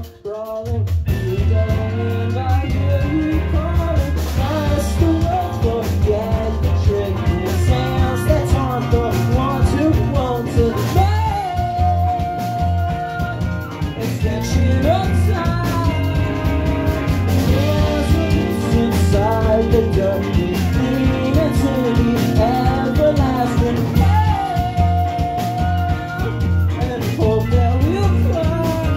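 A rock band playing live: electric guitar and bass with drums, and a voice singing over them. The band drops out for a moment right at the start and comes straight back in.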